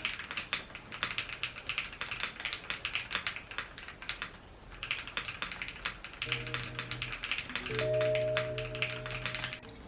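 Fast typing on a mechanical keyboard fitted with Ajazz Banana switches, a dense run of key clacks that pauses briefly about four seconds in and then resumes.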